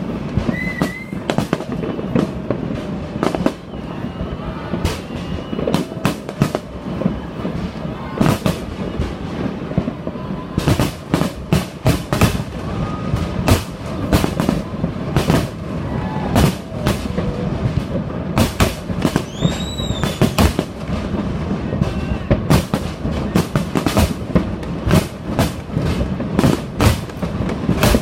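Fireworks display: many sharp bangs and crackles going off in quick, irregular succession over a continuous low rumble, with a high whistle rising and falling about twenty seconds in.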